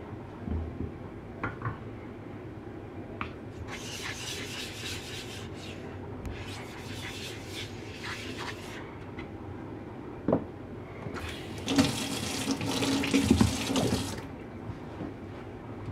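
Water splashing into a stainless steel sink and over wet sharpening stones, in three spells of a couple of seconds each, with a single knock about ten seconds in.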